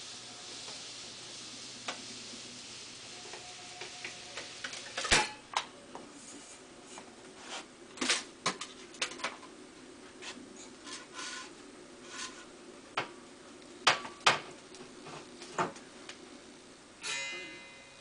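Scattered knocks and light metallic clatter as a hot-wire foam cutter's aluminium bow and foam blocks are handled, with sharp knocks about five, eight and fourteen seconds in. A faint hiss comes first, and a short squeaky scrape follows near the end.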